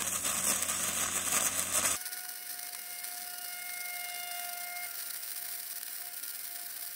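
HITBOX HBM200 gasless MIG welder arc at 200 amps laying a bead on thick steel, a steady hiss from sped-up footage. About two seconds in the sound drops abruptly to a quieter hiss with faint steady whistling tones.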